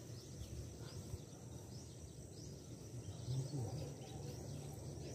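Quiet outdoor ambience with a bird chirping over and over, short high falling notes about twice a second, over a low rumble.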